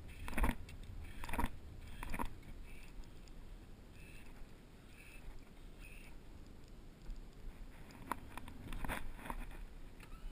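Water slapping and lapping against the side of an aluminum fishing boat over a low wind rumble. There are a few separate slaps about a second apart near the start and a cluster of them near the end.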